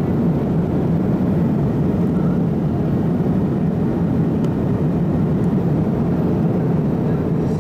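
Steady cabin noise of an MD-88 airliner on approach, from the airflow and its two tail-mounted JT8D turbofan engines: an even low rush that holds at one level throughout.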